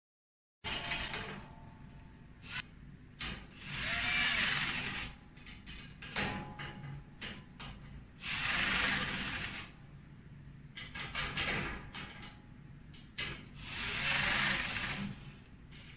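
Cordless electric screwdriver driving screws to fasten a bracket to a steel stand: three runs of about a second each, with short clicks and knocks of handling in between.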